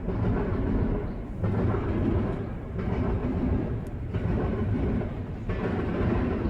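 Freight train cars rolling past, a steady rumble and clatter of wheels on rail that swells and dips about every second and a half as the cars go by.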